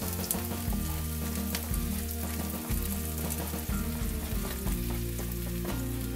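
Chopped vegetables sizzling in a wok of ripping hot oil, a steady frying hiss, with a spatula stirring them near the start. Soft background music plays underneath.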